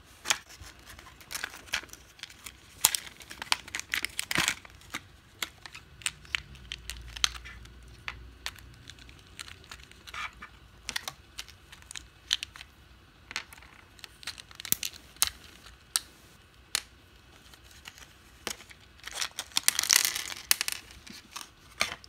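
Clear plastic blister tray crinkling and clicking as tiny plastic miniature pieces are popped out of it and handled. Irregular sharp clicks throughout, with a thicker run of crinkling near the end.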